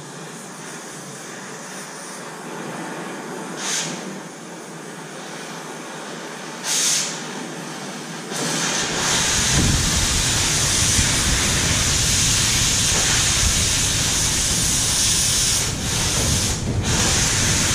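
Oxy-fuel cutting torch hissing on steel: at first the preheat flame hisses moderately, with two short sharper hisses, then about eight seconds in a much louder, steady rushing hiss sets in as the cutting oxygen opens and the torch starts burning through the steel.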